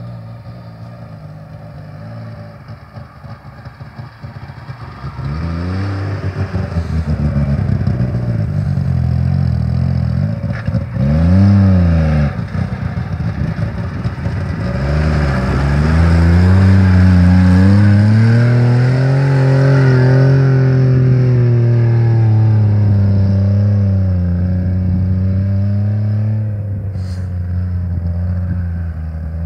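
DKW Munga 4's three-cylinder two-stroke engine revving up and down as the off-roader drives over rough gravel tracks, getting louder as it comes close. It gives a quick rev and drop about eleven seconds in, then holds higher revs for several seconds before easing off.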